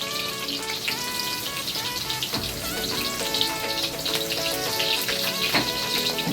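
Onion and pounded garlic sizzling in hot oil in a wok, a steady crackling hiss, under background music with held notes.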